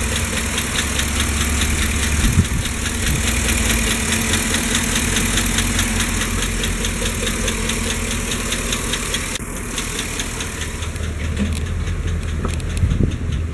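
Chevrolet 5.3 V8 idling with a fast, even ticking over it, a lifter tick typical of this engine's failing hydraulic lifters; the ticking grows fainter in the last few seconds.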